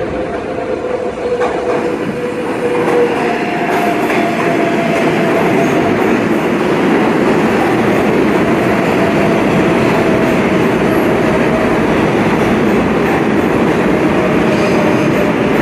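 R188 subway train moving along the platform: steady loud wheel and rail noise that swells about two seconds in, with a faint thin tone held above it.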